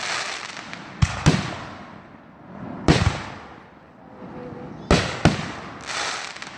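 Fireworks going off: five sharp bangs, two close pairs with a single between, each trailing off in a fading crackle and hiss.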